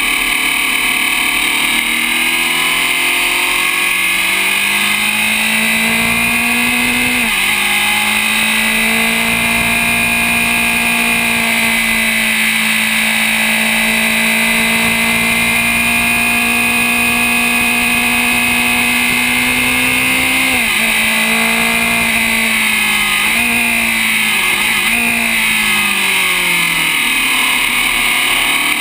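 Open-wheel racing car engine heard onboard at speed. Its pitch climbs and drops sharply about seven seconds in, then climbs slowly. It falls away from about twenty seconds in with a few brief dips, and rises again near the end.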